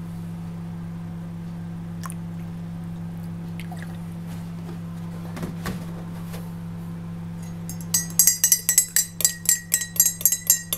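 A metal teaspoon clinking rapidly against the inside of a ceramic mug as tea is stirred, starting about eight seconds in. Under it, a steady low hum, most likely from the microwave oven running.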